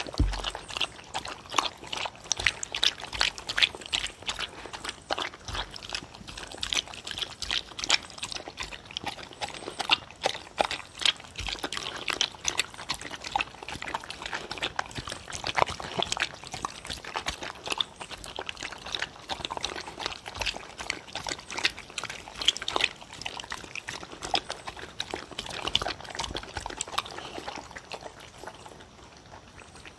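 Two dogs eating a soupy mash of dried pollack, egg yolk and radish soup from wooden bowls, picked up close by a microphone: a steady stream of wet chewing, lapping and slurping with many small irregular mouth and tongue clicks, easing a little near the end.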